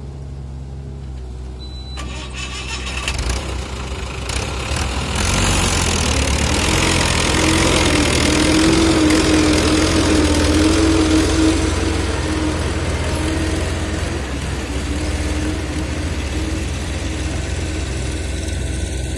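Mahindra tractor's diesel engine pulling a fully loaded trolley of earth through soft mud. The engine runs steadily, builds up about two seconds in, is loudest and labouring through the middle, then eases back somewhat near the end.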